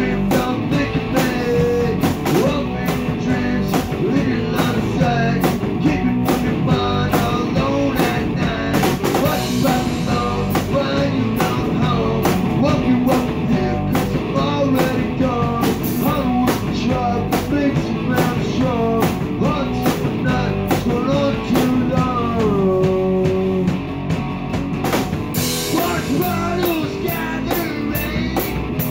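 Small rock band playing live: electric guitar over a drum kit keeping a steady beat with cymbal strikes.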